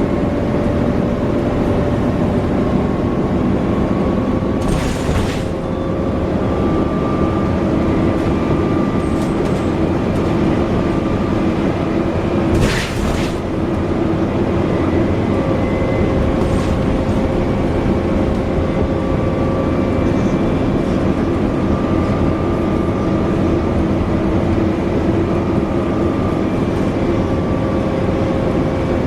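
Alexander Dennis Enviro400 double-decker bus driving, heard from on board, its drivetrain running with several steady whining tones that drift slightly up and down in pitch. Two short bursts of hissing noise cut through, about five seconds in and again about thirteen seconds in.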